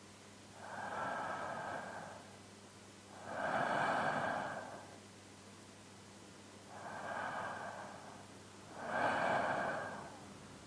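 A man's slow, deep sleep breathing, close-miked in binaural stereo: two unhurried breaths in and out, the second half of each louder than the first, with quiet pauses between.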